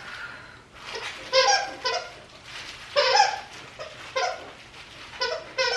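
Dog whining for food in a series of short, high-pitched whines, about six in a row.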